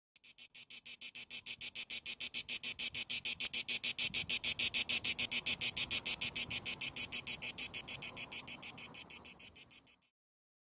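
Cicada singing: a fast, even pulsing buzz of about eight pulses a second. It swells to a peak midway, then fades and stops shortly before ten seconds in.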